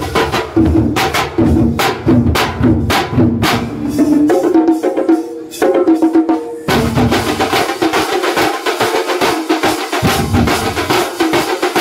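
Kerala thambolam percussion ensemble: many large frame drums beaten with sticks, with small hand drums and clashing hand cymbals, playing a fast, loud rhythm. About seven seconds in, the pattern switches to a denser, rapid roll.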